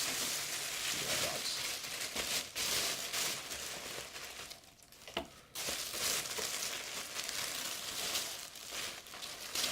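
Takeout food packaging rustling and crinkling as it is handled and opened, with a brief lull and a sharp click about halfway through.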